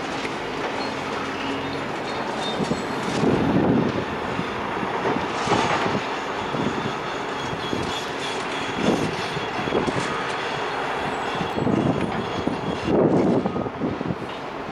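Demolition machinery working steadily, with irregular crunches and clanks every second or two as the building is broken down.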